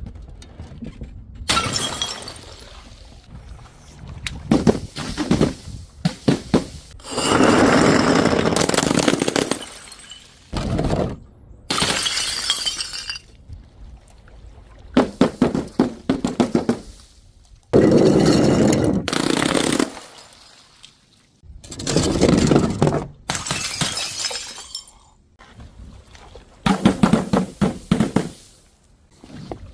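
Glass bottles and jars shattering and crunching in a run of separate breaks. Each break is a cluster of sharp crashes with ringing shards, lasting a second or three, and some stop abruptly.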